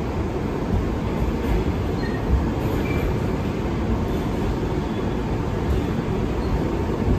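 Inside an R62A subway car running on the track: a steady low rumble of wheels on rails, with a few brief knocks in the first few seconds.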